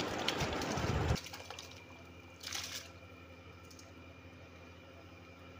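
Soaked rice poured into a pot of boiling beef stock, a wet splashing pour that cuts off abruptly about a second in. A brief second sound comes at about two and a half seconds, then only a faint steady hum.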